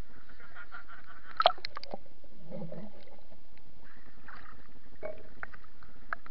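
Lake water lapping and splashing against a camera at the waterline, with a few sharp clicks and small splashes, the loudest about one and a half seconds in, over a steady hiss.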